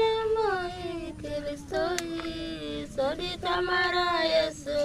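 A woman singing in long held notes that slide from one pitch to the next, with a single sharp click about two seconds in.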